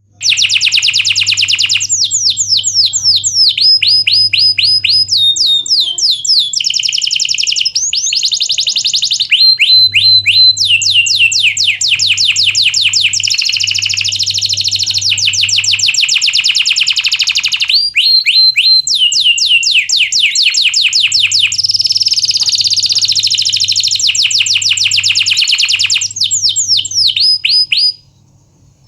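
Domestic canary singing a long song of fast rolling trills and runs of repeated rising and falling whistled notes, with hardly a break, stopping about a second before the end. A faint low hum sits underneath at times.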